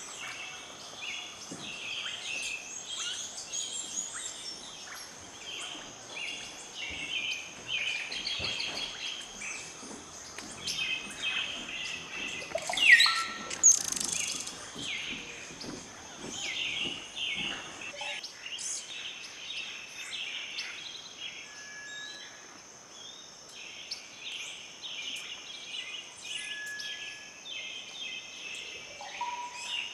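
Wild birds calling with many short, rapid chirps over a steady high whine, with one loud call rising sharply in pitch about 13 seconds in.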